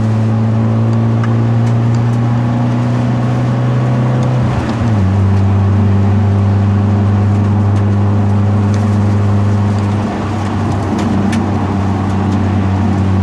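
Hyundai Genesis Coupe 2.0's turbocharged four-cylinder engine running steadily under way. Its pitch glides down about four and a half seconds in, then holds steady at the lower note.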